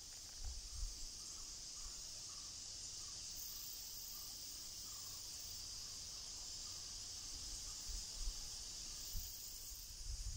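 Steady high-pitched insect chorus in summer vegetation, with a faint run of soft repeated notes in the first half and a few low bumps on the microphone near the start and toward the end.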